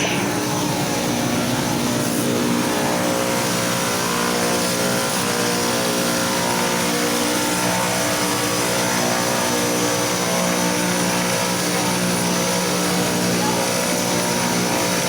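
Electric power sander running steadily at constant speed, a motor whine over a sanding hiss.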